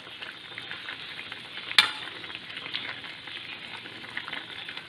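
Pork adobo sizzling in a metal wok as its soy-vinegar sauce cooks down, stirred with a metal spoon that scrapes and clinks against the pan, with one sharp clink a little under two seconds in.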